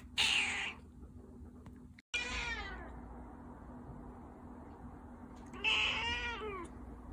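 Persian cat meowing twice: a falling meow about two seconds in and a longer rising-then-falling meow near the end. A short hissy noise burst comes at the very start.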